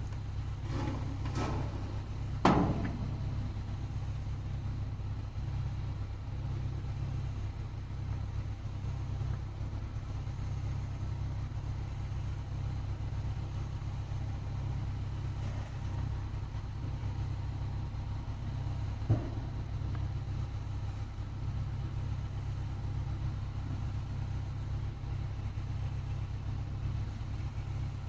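A steady low rumble with a sharp knock about two and a half seconds in, a few lighter clicks just before it, and another short knock near twenty seconds.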